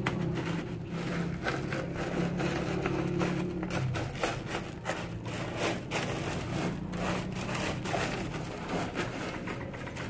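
Wet gravel grating and clicking as a hand spreads and presses it on the bottom of a shallow water-filled pond, in an irregular run of short scrapes. A low steady hum fades out about four seconds in.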